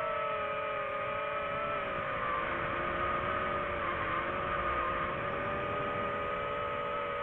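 DJI FPV drone's motors and propellers whining steadily in flight, the pitch sagging a little about two seconds in as the throttle eases.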